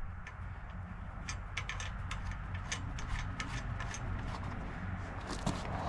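Steady low rumble with many irregular sharp clicks and light metallic taps scattered through it.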